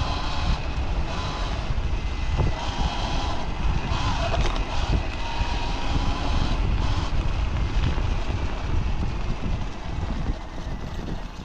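Sur-Ron Light Bee electric dirt bike riding along a forest trail: a steady electric motor whine over a heavy low rumble of wind on the microphone and the tyres on the ground. The sound eases off a little near the end.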